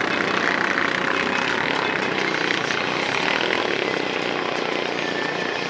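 Engines of off-road race vehicles running on the track as the field races, a steady, fairly high-pitched engine din with no single vehicle standing out.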